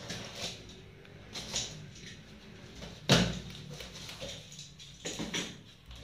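Handling sounds of a PC cabinet being unboxed from its carton: scattered knocks and scrapes, with one sharp knock about three seconds in.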